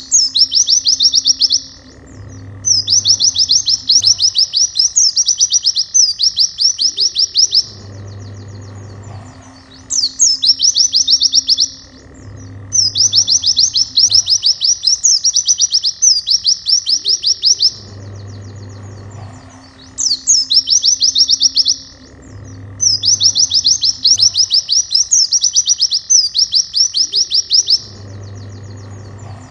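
Pleci (white-eye) singing rapid, high-pitched trills in repeated bursts of one to four seconds with short pauses between, over quieter background music.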